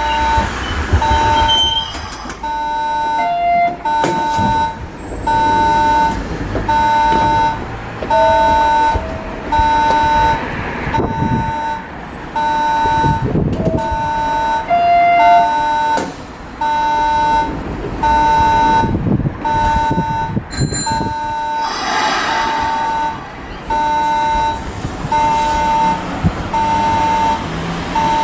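Sanyo Electric Railway door-cut warning alarm beeping over and over, one steady electronic tone about once a second, reminding the conductor to switch on the door cut that keeps the last car's doors shut. A short hiss cuts in about three-quarters of the way through.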